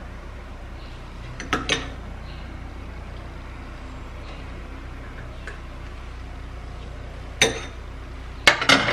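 A metal spoon clinking against a glass bowl and a plastic jar while a thick mixture is scooped out: two quick clinks about a second and a half in, one more near the end, then a short cluster. A steady low hum runs underneath.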